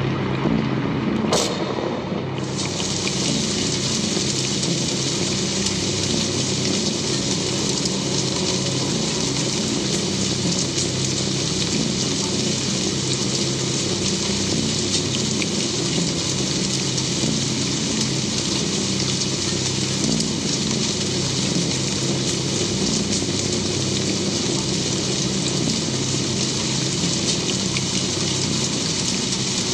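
Steady hiss with a low hum underneath, setting in about two seconds in just after a brief click: the film soundtrack's night ambience.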